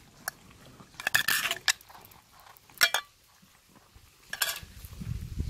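Clinking and crackling from a plastic feeding plate heaped with dry kibble and tuna as several cats eat from it, in three short bursts. A low rumble builds near the end.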